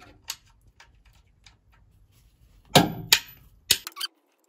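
Metal spanner clinking against the sump bolts under the engine: faint light ticks, then a few sharp metallic knocks about three seconds in.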